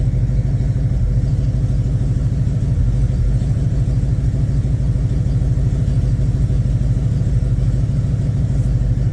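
Jeep J10 pickup's engine idling steadily in gear at about 700 rpm, fully warmed up.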